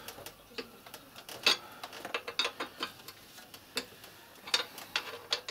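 Ratchet wrench clicking in irregular short runs, with sharp metal clicks, as the cylinder head nuts are tightened down.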